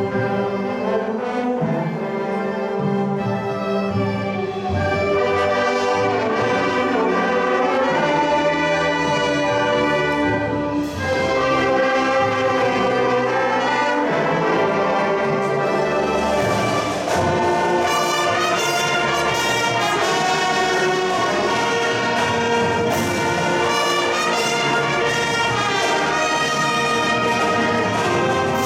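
High school marching band playing its field show, the brass section carrying sustained chords and melody over percussion.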